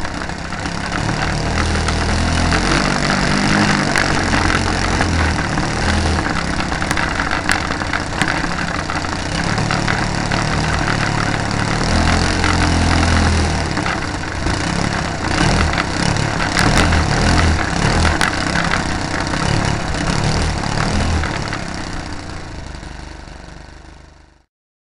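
The engine of a Great Planes Slow Poke RC model airplane, picked up by a camera mounted on the plane and mixed with heavy vibration noise. It fades over the last few seconds and then cuts off.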